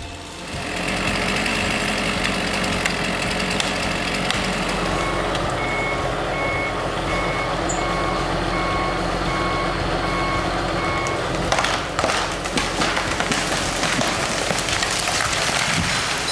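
A heavy machine's engine running steadily, with a reversing alarm beeping at an even pace for about six seconds in the middle. Near the end a run of sharp cracks and knocks.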